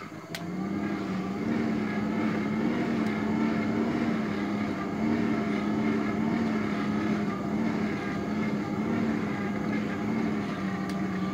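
A motor running with a steady hum that wavers slowly up and down in pitch. It starts abruptly at the very beginning.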